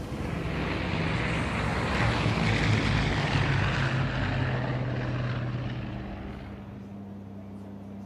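Propeller aircraft flying low past, its engine and propeller noise swelling to a peak about three seconds in and fading by about six seconds. Then a steady low engine drone, as heard inside an aircraft cabin.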